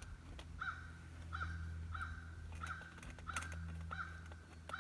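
A bird repeating the same short call over and over, about three calls every two seconds, over a steady low hum.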